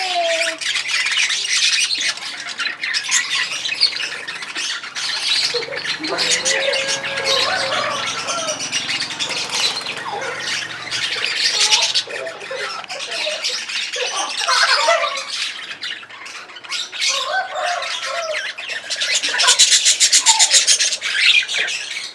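Pet lovebirds chattering and squawking in shrill, rapid calls, with a fast buzzing trill near the end.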